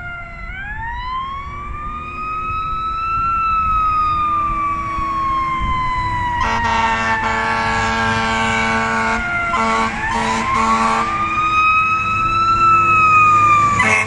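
Fire engine siren wailing in slow rising and falling sweeps, growing louder as the truck approaches at full speed. From about six to eleven seconds in, the engine's horn blares in several blasts over the siren and the low rumble of traffic.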